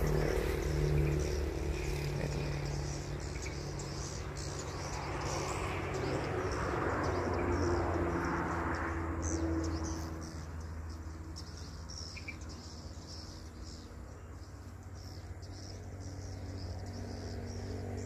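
Swiftlets twittering in the air with many short, high chirps, thinning out about halfway through, over a steady low mechanical hum.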